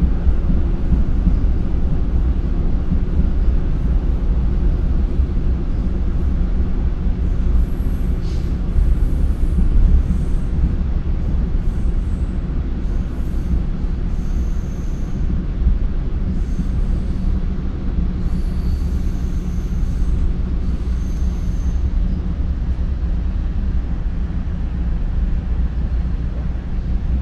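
Commuter train running at speed, heard from inside a passenger car: a steady, loud rumble of wheels on rail. Faint high wheel squeals come and go from about eight seconds in until a few seconds after the middle.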